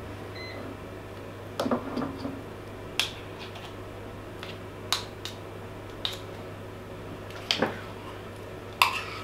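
A metal spoon scraping and tapping against a steel measuring cup and the stainless steel mixing bowl while shortening is scooped out, giving a run of irregular sharp clinks about a second apart.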